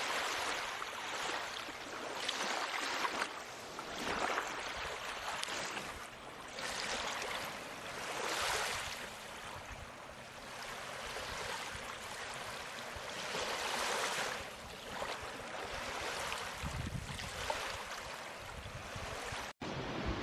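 Ocean waves washing in, a rush of water that swells and falls every couple of seconds.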